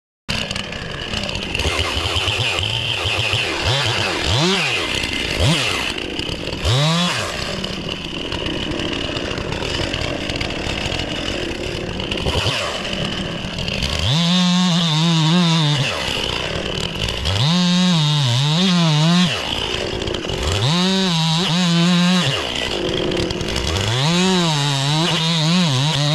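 Stihl chainsaw idling with a couple of short blips of the throttle, then about halfway through revving to full speed four times for about two seconds each, dropping back to idle between. The full-speed stretches waver in pitch as the chain cuts into a log.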